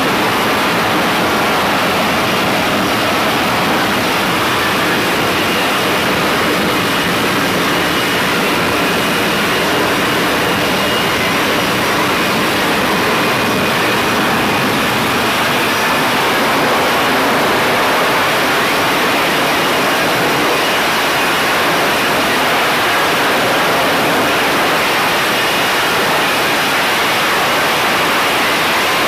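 F-35B Lightning II hovering for a vertical landing: its jet engine and lift fan give a loud, steady roar, with a faint high whine on top.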